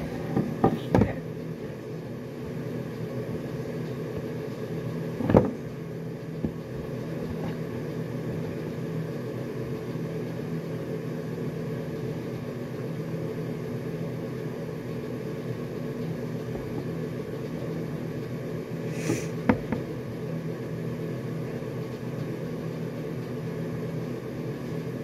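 A steady mechanical hum with several pitched lines holds throughout. A few short knocks break in: a cluster just after the start, one about five seconds in, and two more around nineteen seconds in.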